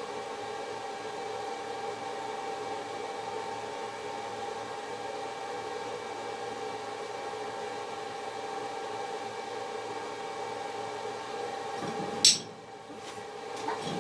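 A machine's steady electrical hum with a few fixed tones, cut off by a single loud click about twelve seconds in, after which it goes much quieter.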